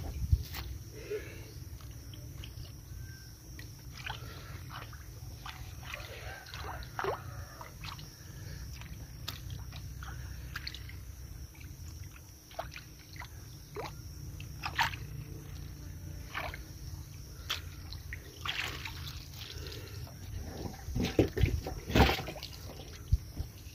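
Splashing and sloshing in shallow muddy water as hands and a mesh hand net scoop through it, with scattered sharp wet clicks over a low steady rumble and a louder flurry of splashes near the end.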